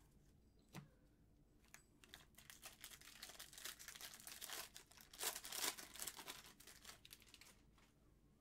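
Trading cards and their foil pack wrapper being handled: a faint run of crinkling and rustling, loudest about five to six seconds in.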